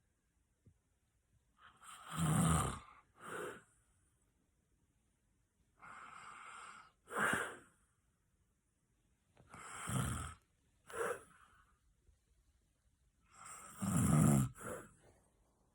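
A person snoring loudly: four snores about four seconds apart, each a drawn-in breath swelling to a low rattle, followed by a short breath out.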